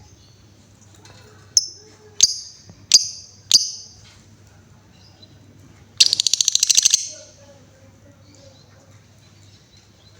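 Female lovebird calling: four sharp, shrill chirps about two-thirds of a second apart, then a rapid ticking trill lasting about a second, over a faint steady low hum.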